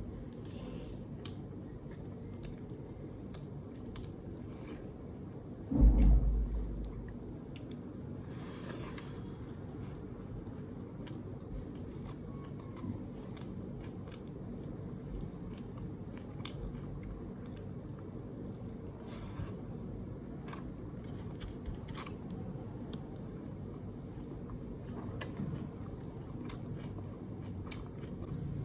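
Close-up eating sounds: chewing, with small wet clicks and brief crunches, over a steady low hum. A single loud low thump about six seconds in.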